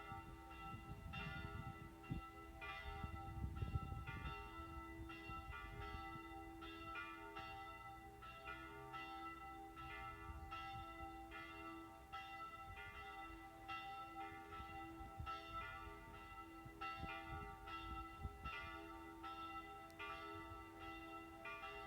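Church bells ringing as a call to prayer: an even, unbroken run of strikes, about one and a half a second, over a continuous hum.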